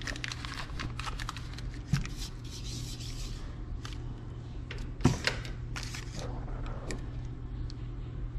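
Kitchen handling sounds as butter is fetched for cooking: scattered light clicks and taps, with two louder knocks about two and five seconds in, over a steady low hum.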